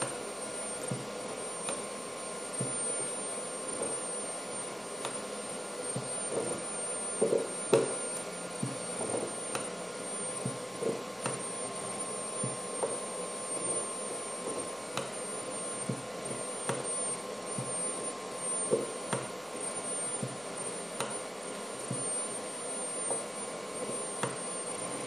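Mitsubishi MELFA RV-3SB six-axis robot arm running as it draws with a pen: a steady whirring hum from its servo drives, with frequent small irregular clicks and taps as the arm moves and the pen works on the paper.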